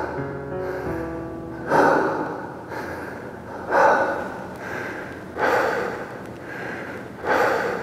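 Heavy breathing of a dancer winded after a routine: four loud, rough breaths about two seconds apart. The song's last held notes die away in the first second.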